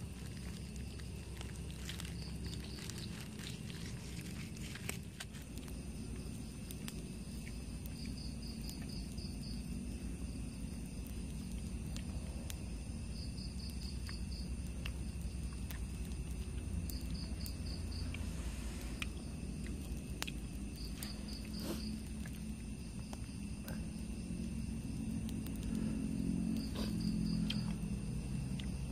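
Night insects in forest: a steady high drone, with a cricket-like insect giving a short pulsed trill every few seconds. Underneath is a steady low background noise with a few faint clicks.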